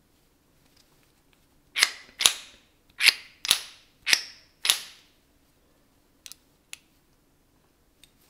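Metal parts clinking together sharply six times in about three seconds, each with a brief ring, as the machined aluminium driver body and its steel center are handled; two light clicks follow.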